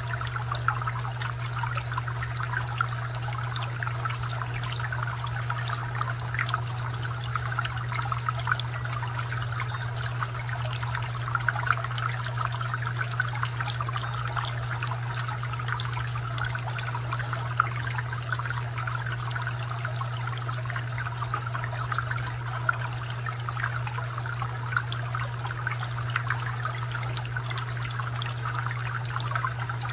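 Garden fountain water trickling and splashing steadily, with many small irregular droplet splashes and a steady low hum underneath.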